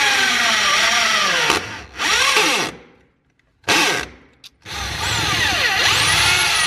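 Corded electric drill boring through a minivan's carpeted sheet-metal floor, run in several bursts with short pauses. The motor's pitch dips and climbs as the bit bites and frees.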